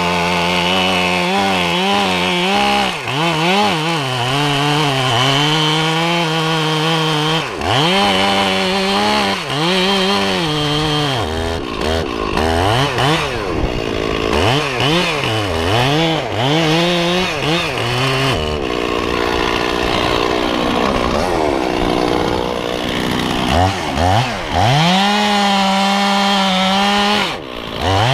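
Stihl MS 460 two-stroke chainsaw cutting through cottonwood trunk wood, the engine pitch repeatedly sagging under load and climbing again as the throttle is worked, with a short dip near the end.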